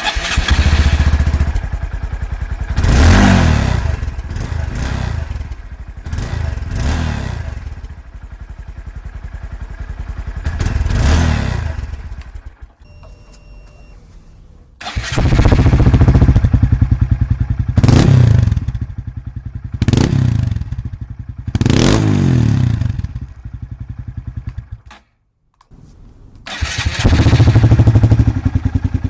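Honda Grom (MSX 125) single-cylinder 125 cc engine starting and idling through its exhaust, with a series of throttle blips that rise and fall every few seconds. It drops to a quieter idle partway through, and the sound breaks off briefly near the end before the revving resumes.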